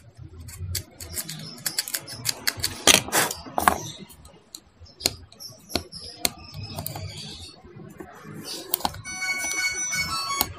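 Scattered sharp clicks and taps from handling a small motorcycle horn relay whose contacts are dirty and rusted. Background music comes in near the end.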